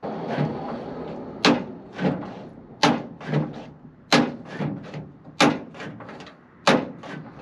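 Stiff, rusty cab door latch of an old Chevrolet truck being worked repeatedly by its inside handle: five sharp clicks about every second and a quarter, with softer clacks in between, as the stuck latch is worked in.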